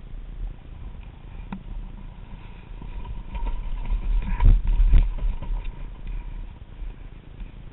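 Knocks and scrapes of a fallen dirt bike being wrestled upright on a rocky trail, over rumbling handling noise on a helmet-mounted camera. The loudest knocks come about four and a half and five seconds in.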